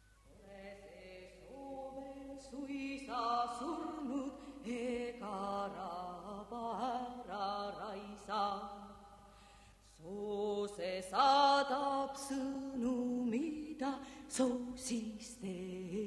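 Unaccompanied chant-like singing by a voice, starting about half a second in, with a short break about ten seconds in.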